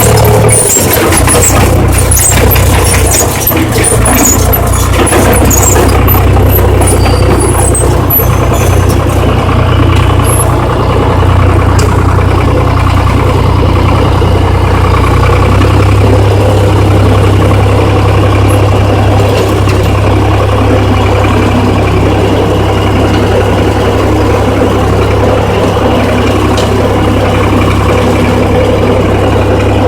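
Riviere Casalis KR 40 tractor engine running steadily, with a loud, even low note that changes slightly about halfway through.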